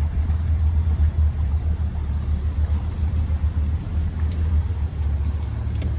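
Tour boat's outboard motor running steadily, a continuous low rumble.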